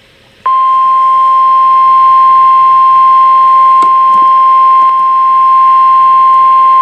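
NOAA Weather Radio 1050 Hz warning alarm tone: a loud, steady single-pitched tone that starts about half a second in, with a few faint clicks. It is the alert that a warning broadcast follows, here a special marine warning.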